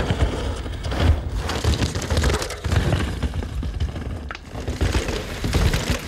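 Mountain bike ridden flat-out down a rocky trail: tyres rolling and skidding over stones and dirt, with a rapid run of thuds and cracks as the wheels hit rocks.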